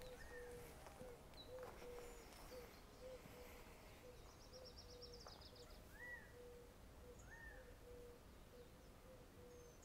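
Faint birdsong in open woodland: a low note repeated steadily about twice a second, with a few higher rising-and-falling calls and a brief rapid trill around the middle.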